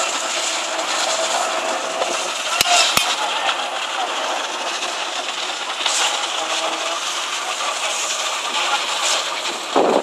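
Steady din of construction machinery during a concrete pour, with workers' voices calling out now and then and two sharp knocks close together about two and a half seconds in.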